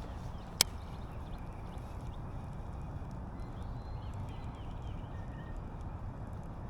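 Outdoor lakeside ambience: a steady low rumble with faint birds chirping in the background, and a single sharp click about half a second in.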